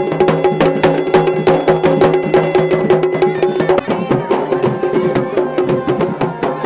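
Garhwali dhol and damau drums beating a steady rhythm, with a masakbaja (Garhwali bagpipe) playing a melody over a held drone. The tune shifts about four seconds in.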